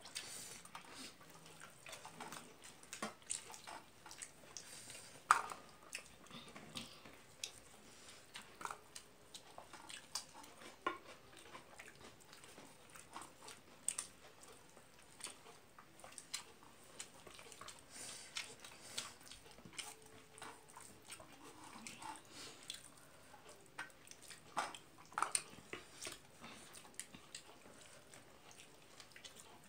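A person eating rice and egg curry with her fingers: chewing and mouth sounds with scattered soft clicks, the loudest about five seconds in.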